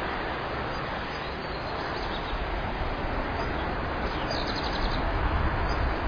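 Steady wind noise on an outdoor microphone, with low buffeting that grows stronger from about four seconds in. A faint, quick, high-pitched trill comes about four and a half seconds in.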